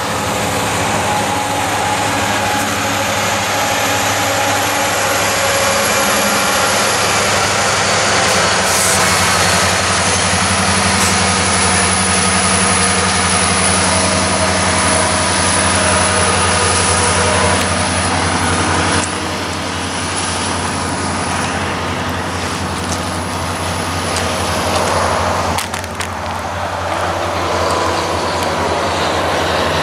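BNSF freight train passing, recorded trackside: the steady drone of diesel-electric locomotive engines over the rumble of the train. The sound eases slightly about two-thirds of the way through.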